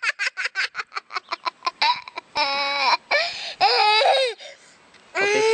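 A baby giggling in a quick run of short bursts that slows and fades over the first two seconds, followed by long, high, wavering squeals that break off briefly before another starts near the end.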